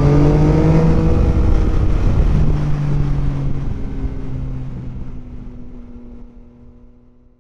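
Yamaha Tracer 900's inline three-cylinder engine through an M4 slip-on exhaust, rising in pitch under acceleration for about the first second, then running steadily with wind rush on the helmet mic, and fading out toward the end.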